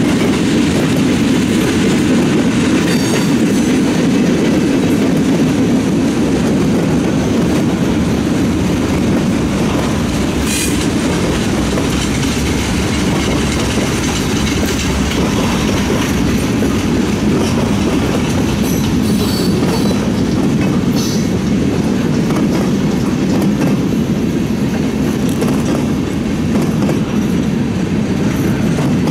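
Freight cars of a passing train (bulkhead and centerbeam flatcars, covered hoppers, a tank car) rolling by at a steady speed: a steady low rolling noise of wheels on rail, with a few short, sharp clanks and squeaks.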